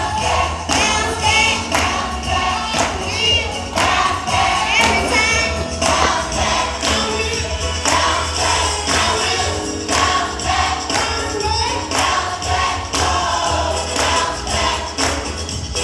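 Youth gospel praise team singing together over live accompaniment, with percussion striking a steady beat.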